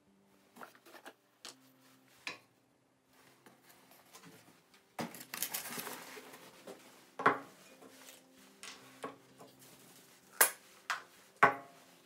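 Small wooden pieces being handled: scattered light clicks and knocks of wood on wood, a couple of seconds of rustling about five seconds in, and three sharp knocks near the end.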